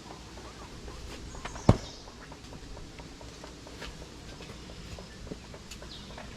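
Light scattered clicks and taps, with one sharp knock about two seconds in.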